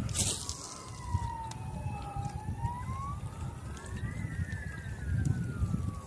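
Emergency vehicle siren wailing, its pitch rising and falling slowly, one swing every five or six seconds. A brief sharp hiss sounds just after the start.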